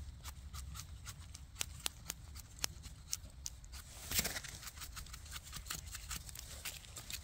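A small knife scraping and trimming soil off the stems of freshly picked porcini mushrooms: a run of light, irregular clicks and scrapes, with a longer, louder scrape about four seconds in.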